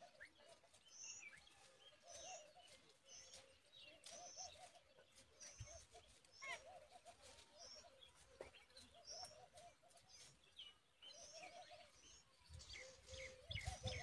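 Birds chirping faintly: short high chirps repeat about twice a second throughout, over lower wavering notes.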